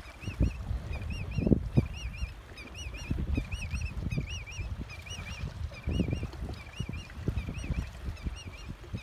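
A high, warbling call repeated about twice a second throughout, over an irregular low rumbling.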